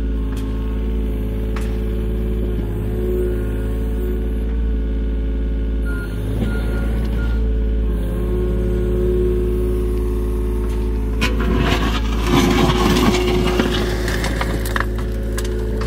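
John Deere mini excavator's diesel engine running steadily under hydraulic load. About eleven seconds in, the bucket scrapes and crunches through stony soil for several seconds.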